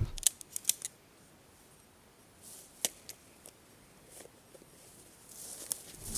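A hunter getting up out of tall grass and handling his gear: a few sharp clicks and knocks in the first second and another a little before the middle, then rustling of grass and clothing that grows near the end as he steps off through it.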